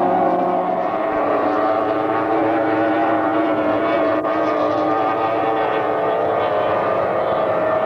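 Racing powerboat engines running flat out at speed, a steady loud drone of several tones over the rush of water; the pitch shifts slightly about a second in.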